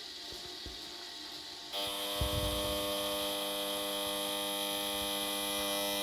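De'Longhi ECAM 25.452.B coffee machine hissing while it outputs milk; a little under two seconds in, a loud, steady buzz suddenly sets in and holds. The buzz is the machine's defect, which stops the milk output and has survived two repairs.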